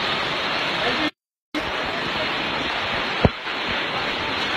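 A steady, loud rush of water in a flooded street. It cuts out completely for about half a second a second in, and there is a single sharp click about three seconds in.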